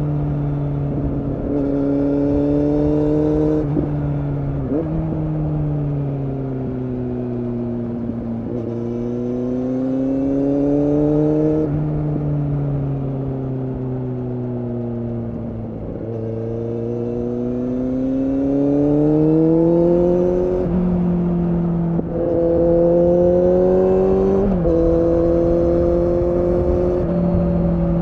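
2015 Kawasaki Z800 inline-four with an Akrapovic exhaust, under way: its note rises and falls as the rider opens and closes the throttle, with several sudden steps in pitch at gear changes.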